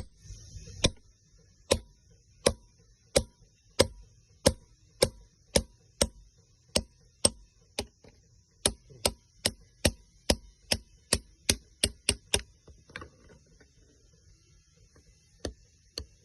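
Sharp, short metal clicks, one after another about one and a half to two a second, as the sharp ends of metal braces are cut off. They stop for about two seconds near the end, then start again.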